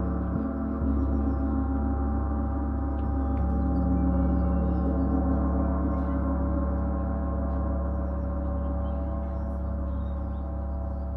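Paiste 34-inch Symphonic gong played with two felt mallets: a sustained wash of many overlapping tones, refreshed by soft strokes near the start, swelling over the first few seconds and then slowly fading.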